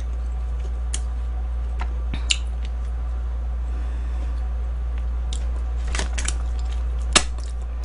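Scattered small clicks and crunches of someone eating sauced fried chicken with her fingers, the sharpest click about seven seconds in, over a steady low electrical hum.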